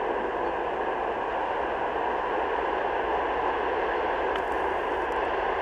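TEP70 passenger diesel locomotive, with its 16-cylinder diesel engine, approaching at the head of a passenger train. Its engine and wheels give a steady, even noise with no rise or fall in level.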